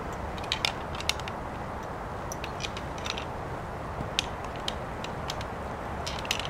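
Mauser M18 bolt-action rifle being loaded by hand: scattered sharp clicks of cartridges and the rifle's action being handled, a small cluster near the end, over steady background noise.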